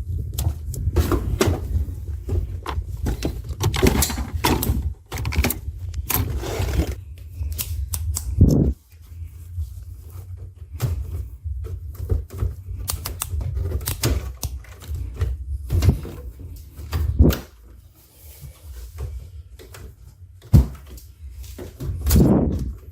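Irregular clicks, taps and knocks of hard parts being handled, over a steady low rumble.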